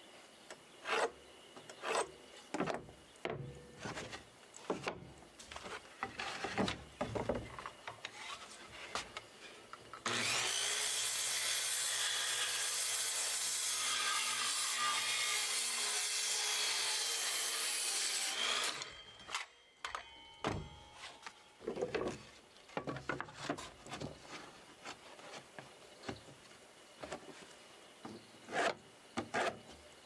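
Woodworking: wood being worked by hand with irregular rubbing and knocking strokes. About ten seconds in, an electric power tool runs steadily and loudly for about nine seconds and stops sharply, and then the hand strokes on wood resume.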